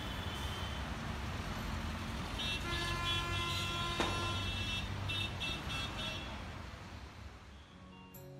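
Busy street traffic noise with vehicle horns honking in two spells a few seconds apart. The traffic fades away toward the end.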